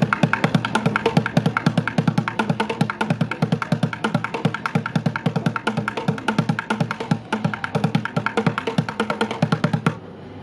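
Music with a quick, steady percussive beat, which cuts off abruptly near the end.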